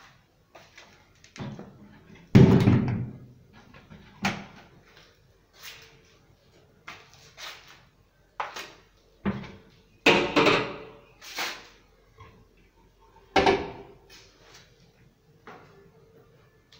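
Wooden kitchen cabinet doors of HDF plywood being swung open and shut: about a dozen sudden knocks and bangs at uneven intervals, the loudest about two seconds in.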